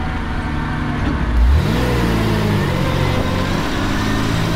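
Mercedes Unimog's diesel engine pulling hard on a gravel track: about a second and a half in the revs climb sharply, then hold steady, with tyre noise over gravel.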